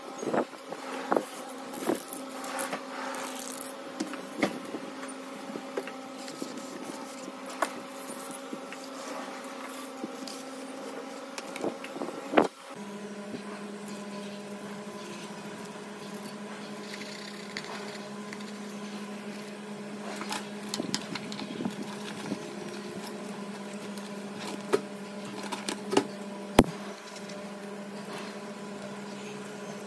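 A steady low machine hum, its pitch dropping a little after a sharp click about twelve seconds in, with scattered small clicks and taps.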